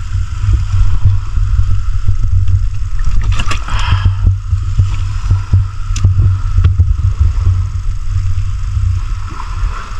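Muffled underwater rumble through a submerged camera's waterproof housing, with scattered clicks and knocks as a hand works among the rocks, and a short brighter scrape or bubble noise about three and a half seconds in.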